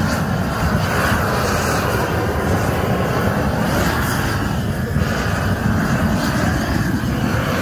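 Hose-fed gas burner with a steady rushing roar of flame, singeing the bristles off a slaughtered pig's carcass.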